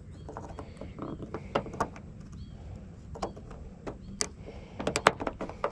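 Scattered sharp clicks and light knocks of a replacement exterior door handle being worked and snapped into a car's rear door, in several small clusters.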